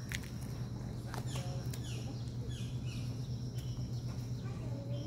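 Small birds chirping repeatedly in short falling chirps over a steady low hum.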